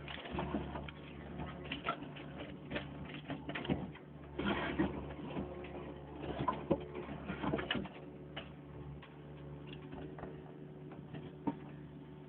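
Backhoe engine running steadily, with irregular bursts of clatter over the first eight seconds or so and a few sharp clicks after.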